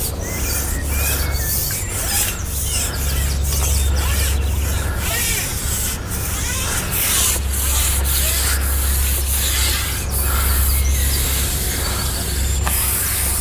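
Wind buffeting the microphone: a steady low rumble under a rushing, rubbing hiss that swells and fades. A few short bird chirps come through now and then.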